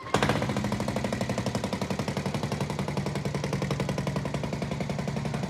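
Single-cylinder engine of a 1985 Suzuki LT230E quad catching at once and idling with rapid, even exhaust pulses.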